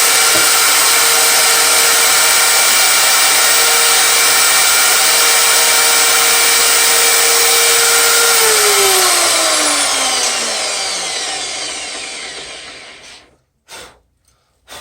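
Woodworking power tool motor running steadily with a constant whine, then switched off about eight and a half seconds in and spinning down, its pitch falling until it fades out. A few light knocks follow near the end.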